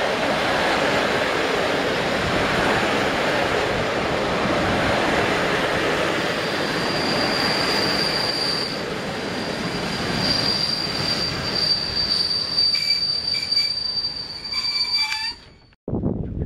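Passenger coaches rolling past a station platform: a steady rumble of wheels on rail, joined about six seconds in by a steady high-pitched squeal, with a few more squealing tones coming in near the end. The sound cuts off suddenly just before the end.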